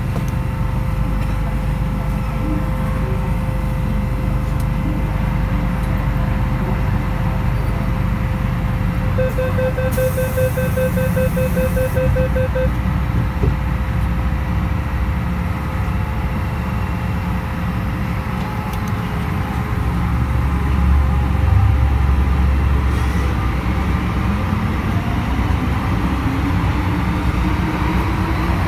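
Interior of an MTR M-Train electric multiple unit: a steady low rumble with a held tone, then a run of quick beeps, about four a second, from about nine seconds in, with a brief hiss of air. Later the traction motors' whine rises steadily in pitch as the train pulls away and gathers speed.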